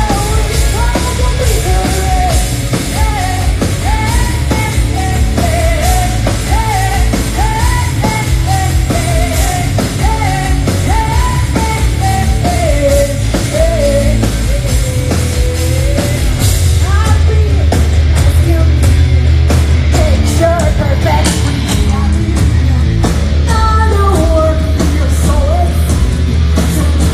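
Live hard rock band playing loud: electric guitars and drums, with a woman singing the lead melody over most of it.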